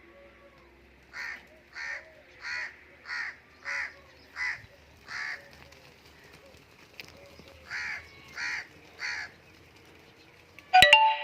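A crow cawing in two series of short, harsh calls: seven caws about two-thirds of a second apart, a pause, then three more. Just before the end a sudden loud burst with steady tones cuts in.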